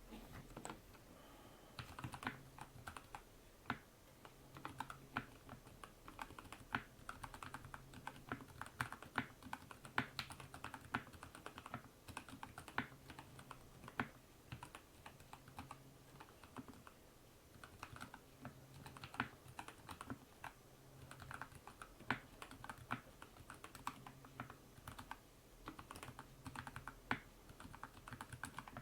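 Typing on a modded Akko 3098 mechanical keyboard with prelubed Gateron Yellow linear switches, heat-shrink-modded stock stabilizers and sound-dampening foam: an uneven run of keystroke clacks.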